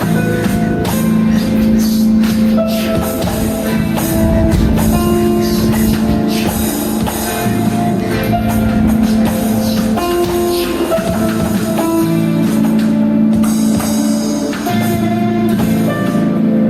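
Instrumental band music: guitar and drums playing a steady rhythm, with no singing.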